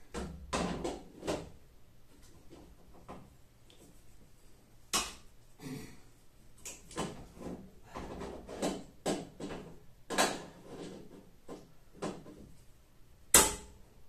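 Vice grips clamping and working the dented top panel of a tumble dryer against a wooden block: an irregular run of clicks and knocks, with one sharp, loud knock near the end.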